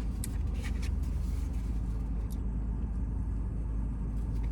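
Steady low rumble of a car's engine idling, heard from inside the cabin, with a few light clicks in the first couple of seconds.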